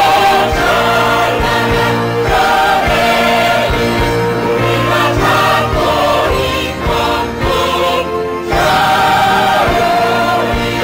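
A stage-musical ensemble chorus singing in Korean in unison over a backing accompaniment, with a short break in the singing about eight seconds in.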